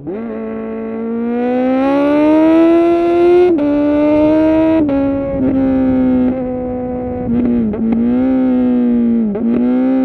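2020 Kawasaki Z900's inline-four through a full titanium SC-Project exhaust, under hard acceleration: the revs climb, broken by two quick upshifts about three and a half and five seconds in. It then holds speed, and from about seven seconds in it decelerates with a run of downshifts, each a short dip and throttle blip.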